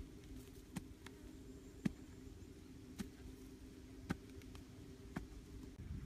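Hand digging tool stabbing into soil, five sharp knocks about a second apart, over a faint low steady hum.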